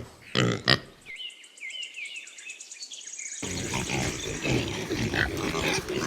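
Pigs: two short pitched squeals about half a second in, then a stretch of faint high chirping. From about three seconds in comes a continuous rough mix of grunting.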